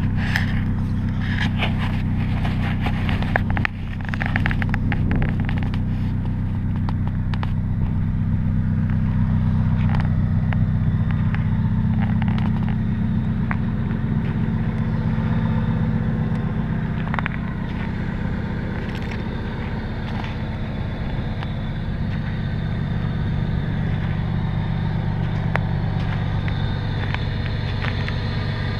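Car engine idling steadily with a low hum, with light clicks and scrapes in the first few seconds and a brief dip in level a little under four seconds in.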